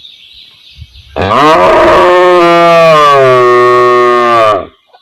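Cow mooing: one long, loud moo of about three and a half seconds, starting about a second in. Its pitch rises at the start, then holds and sinks a little before it stops.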